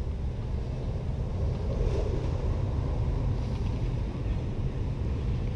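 Steady low rumble of wind buffeting the camera microphone, with no distinct events.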